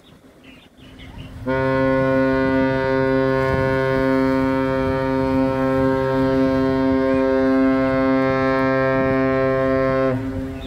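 A cargo ship's horn sounds one long, steady, deep blast. It starts about a second and a half in and cuts off sharply shortly before the end, leaving a brief fading tail.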